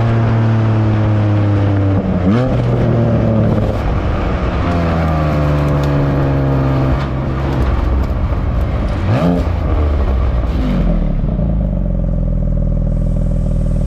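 Porsche 718 Boxster GTS 4.0's flat-six exhaust on the stock mufflers with the gasoline particulate filter still fitted. The engine note drifts slowly down, with two quick rev blips about two and nine seconds in, then settles to a lower steady note near the end.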